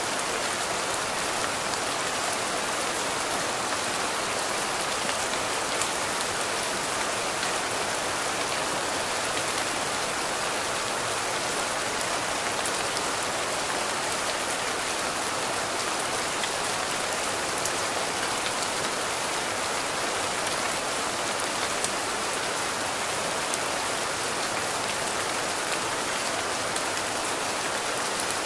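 Steady rain falling: an even hiss with many small drop ticks scattered through it.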